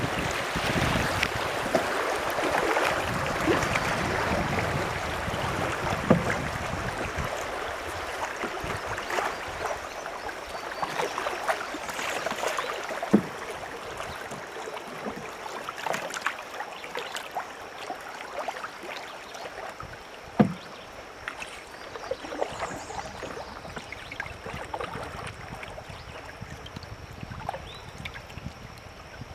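River water rushing and splashing around a drifting canoe, loudest in the first few seconds and slowly fading, with a few sharp knocks.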